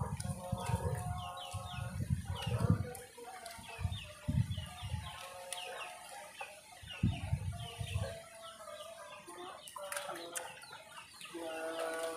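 Chickens clucking again and again, with small birds chirping and soft low thumps close to the microphone.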